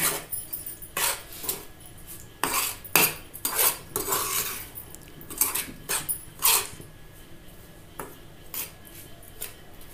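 Steel spoon scraping and clinking against a frying pan while ground roasted chana and spices are stirred and mixed in it. The strokes are irregular and grow sparser in the last few seconds.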